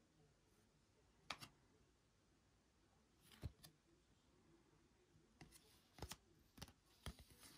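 Faint, short clicks and snaps of trading cards being slid and flipped in the hand, a handful in all, coming closer together near the end.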